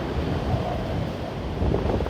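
Typhoon-force wind buffeting the microphone in a rough, continuous rush, with a stronger gust near the end.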